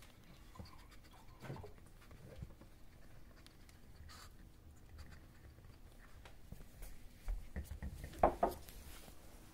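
Puppy licking and gnawing a rubber Kong toy stuffed with a lickable treat, the toy rubbing and knocking on a wooden floor. There are faint scattered clicks throughout and a cluster of louder knocks near the end.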